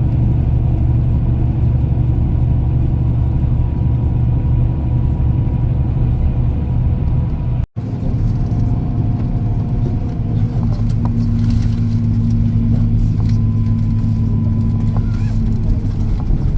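Steady low rumble of a motor vehicle running, with faint steady whining tones above it. It cuts out for an instant about halfway through, then carries on the same.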